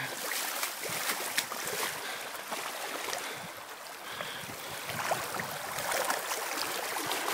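Shallow creek water rushing and splashing, a steady hiss of running water with many small splashes close by.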